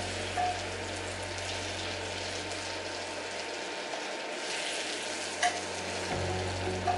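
Butter, sliced garlic and cherry tomatoes sizzling in a hot frying pan, with two brief metal clinks of a spoon scooping them out, about half a second in and near the end.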